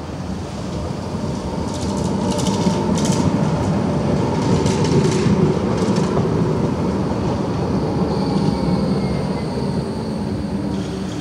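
Low-floor electric tram (VGF S-Wagen, Bombardier Flexity Swift) passing close by on the loop track, its wheels running on the rails. It grows louder to a peak about halfway through, with bursts of clicking in the first half. In the last few seconds there is a thin high tone as it takes the curve.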